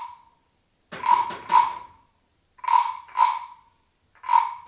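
Wooden frog güiro scraped with its stick, giving a croaking rasp with a ringing wooden tone. It is played in pairs of short strokes, a pair about every second and a half, imitating a frog's croak.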